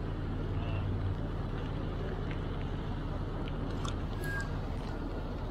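Rainy city street ambience: a steady hiss of rain and wet traffic over a low steady hum, with scattered light ticks.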